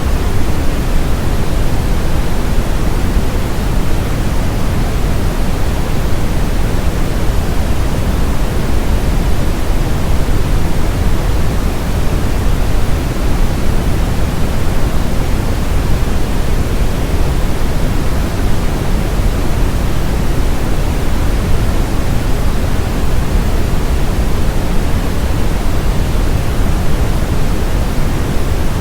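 Steady brown noise: an even, unchanging rush of random noise weighted heavily toward the low end, deep and rumbling with a fainter hiss above.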